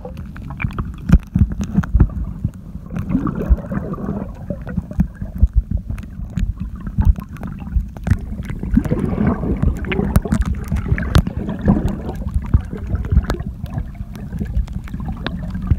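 Shallow sea water heard from just beneath the surface: a muffled low rumble of the surf, with many sharp clicks and crackles throughout.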